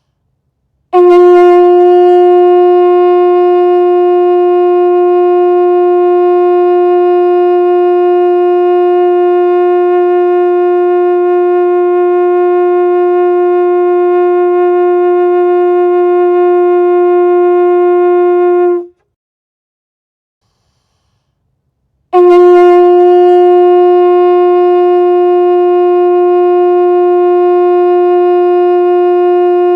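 Conch shell blown as a horn: one long steady note held for about eighteen seconds, strongest at its onset, then after a pause of about three seconds a second long note at the same pitch.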